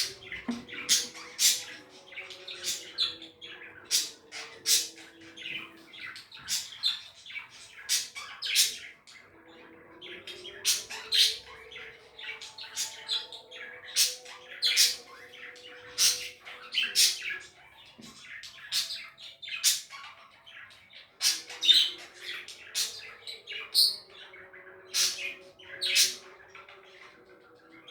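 Pet budgerigars chirping and chattering: a steady stream of short, sharp, high chirps, one or two a second, with softer warbling between them.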